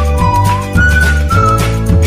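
Background music: a high melody line over a steady, heavy bass beat.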